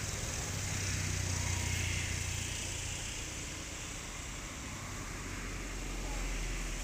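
Steady low engine hum, as from a motor vehicle running, under outdoor background noise.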